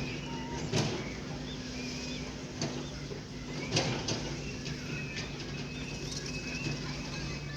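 Background ambience: a steady low hum with faint short bird chirps, and two sharp knocks, about a second and about four seconds in.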